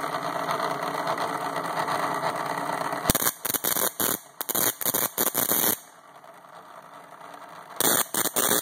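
Circa-1920s spark gap transmitter: its rotary spark gap motor runs steadily. About three seconds in, the key starts firing the gap in short, loud Morse-code bursts sending CQ; after a pause of about two seconds the bursts start again near the end.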